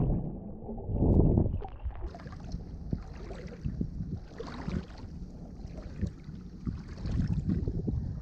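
Muffled water noise heard underwater for about two seconds, with a surge about a second in, just after a dive into the ocean. Then irregular sloshing and splashing of sea water around the microphone.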